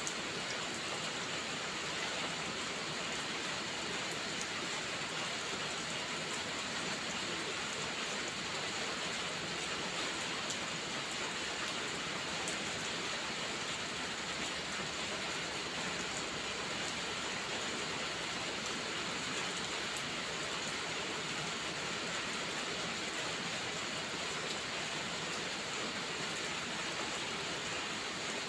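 Steady heavy rain: an even, unbroken hiss with faint scattered ticks through it.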